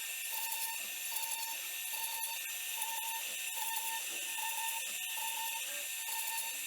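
CNC router carving: the spindle runs with a steady high hiss while the axis motors give short whining strokes that repeat evenly, a little more than once a second, as the tool makes back-and-forth passes.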